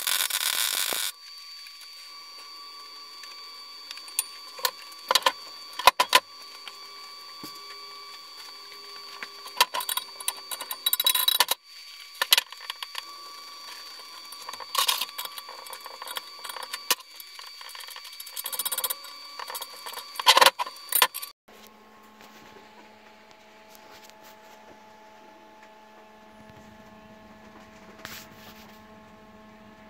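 A MIG welder arcing for about a second at the start as a short weld goes onto the steel subframe. Then intermittent clanks and knocks of metal being handled, over a faint steady whine. From about two-thirds in, a low steady hum.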